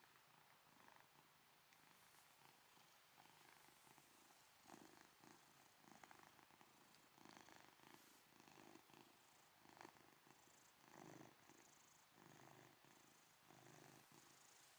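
Domestic cat snoring and purring, faint, in soft uneven pulses that grow a little stronger partway through.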